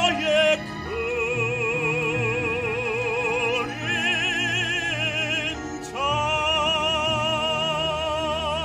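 A baritone singing a Korean art song live in operatic style over an instrumental backing track played through a Bluetooth speaker. He holds three long notes with wide vibrato, the third and longest starting about six seconds in.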